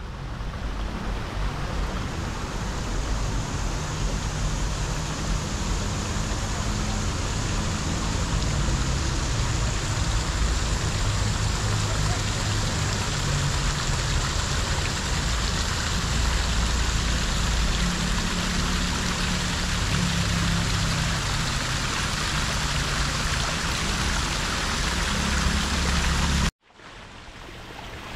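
Running water with a low rumble underneath, steady and continuous. It cuts off abruptly about a second and a half before the end, then fades back in.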